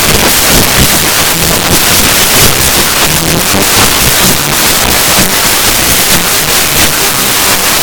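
Loud, heavily overdriven bass-boosted music, clipped so hard that it comes out as a steady harsh roar of noise with only a faint low pitched line under it.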